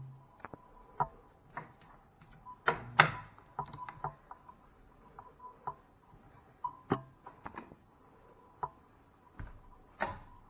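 Irregular sharp clicks and light knocks of a handheld camera being handled and moved, the loudest pair about three seconds in, over a faint steady high hum.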